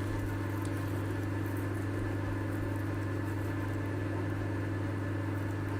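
Steady low hum at an even level, with no strokes, knocks or other events.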